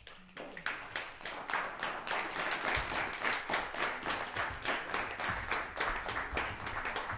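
Audience applauding, a dense patter of many hands that swells over the first couple of seconds and thins out near the end.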